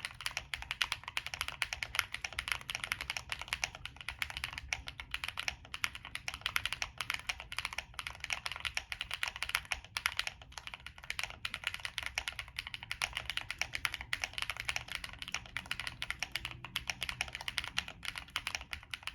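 Continuous fast typing on a Monsgeek M1 mechanical keyboard with frankenswitches: Cherry MX Black housings with metal long-pole stems. The board has a POM plate, plate foam, polyfill in the case and GPBT Cherry-profile keycaps. It makes a dense stream of key clacks with only brief pauses.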